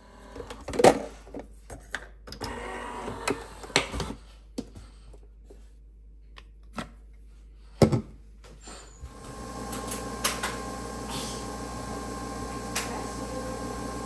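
Sharp clicks and knocks of a capsule coffee machine being handled and closed, the loudest about a second in and again near eight seconds. From about nine seconds the machine runs with a steady hum as it brews coffee into the mug.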